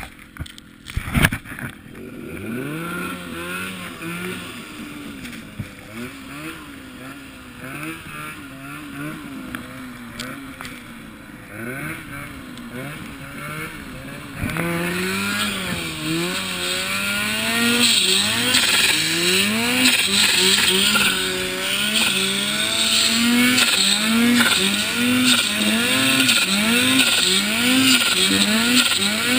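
Snowmobile engine running and revving up and down as the sled ploughs through deep powder, a few knocks about a second in. It gets louder about halfway through, then rises in pitch in quick repeated throttle blips about once a second.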